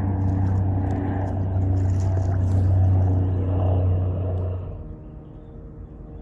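A motor running with a steady low drone, which drops away suddenly about three-quarters of the way through.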